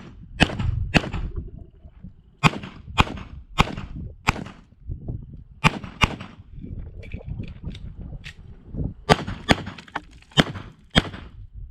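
Pistol shots fired mostly in quick pairs, about half a second apart: around a dozen shots, with a pause of about three seconds after the sixth second.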